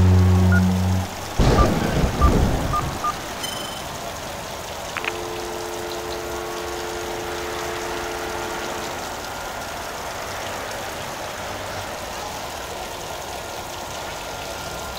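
The song's last held note ends about a second in, followed by a short burst of knocks and then the steady hum of night-time city traffic. A steady two-note tone sounds over it for a few seconds in the middle.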